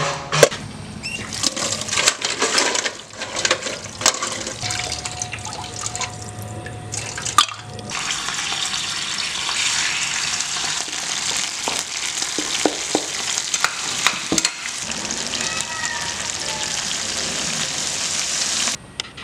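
Giant snails frying in a pan on a gas stove: a steady sizzling hiss that starts abruptly about eight seconds in and cuts off just before the end. Before it come several seconds of scattered clicks and clattering.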